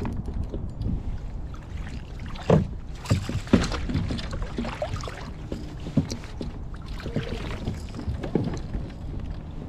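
A Hobie Outback kayak's plastic hull afloat on choppy water, over a steady low rumble of wind on the microphone. A few sharp knocks land about a third of the way in and again past the middle.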